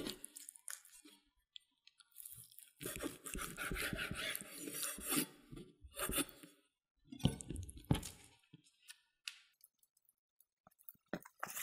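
A chef's knife slices through raw chicken breast on a wooden cutting board, in separate strokes lasting from under a second to about three seconds, with quiet gaps between them. Near the end there are a few short clicks as the meat is handled.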